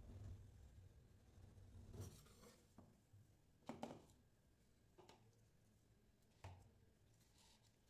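Faint handling sounds of rolled ice cream being lifted off a steel cold plate and set into a cup: a few scattered soft taps and scrapes, over a low hum in the first two seconds.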